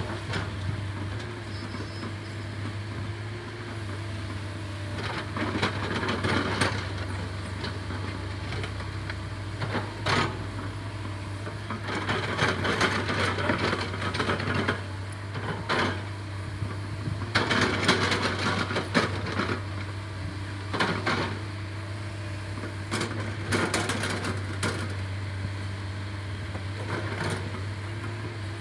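Earthmover's diesel engine running with a steady low drone, with irregular bursts of crunching and scraping every few seconds as the bucket works the ground.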